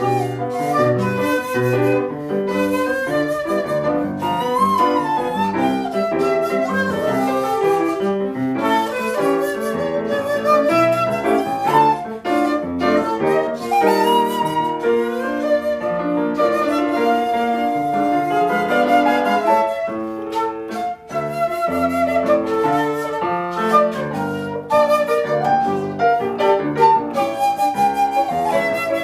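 Seven-hole shakuhachi (1.6-shaku tube) playing a melody with wavering, bending notes over piano accompaniment.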